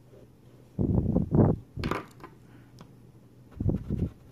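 Black permanent marker drawn over a scratch-off lottery ticket, circling a matched number: short rubbing strokes about a second in and again near the end, with a sharp click around two seconds in.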